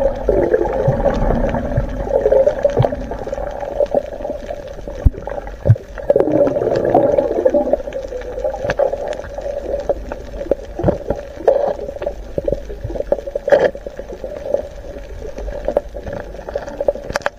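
Muffled underwater sound heard by a camera below the surface: water sloshing and bubbling, swelling and fading unevenly, with scattered sharp clicks and knocks.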